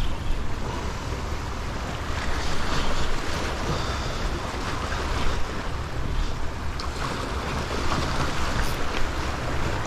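Small waves washing and splashing against the boulders of a rock jetty, in gentle surges, with wind rumbling on the microphone.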